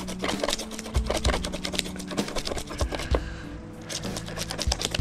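Knife blade scraping the large scales off a whole Mayan cichlid on a wooden board, a fast run of rasping clicks. Background music plays underneath.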